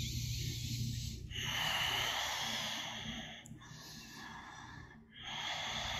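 A person breathing slowly and audibly through the nose while holding a yoga pose, in long breaths of a second or two each, the middle one quieter.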